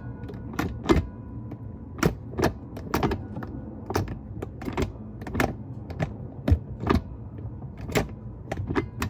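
Short shifter lever and selector-rod joint of a BMW E36 M3 clicking and clunking as the lever is worked through the gears, heard from under the car: a string of sharp clicks and knocks, about two a second at uneven spacing.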